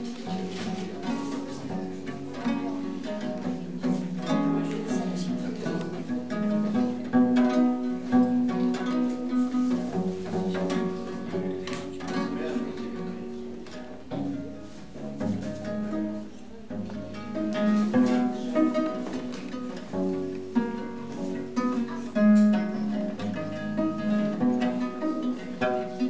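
Viola da gamba played pizzicato: fingers plucking the strings through a run of pitched notes in a tune.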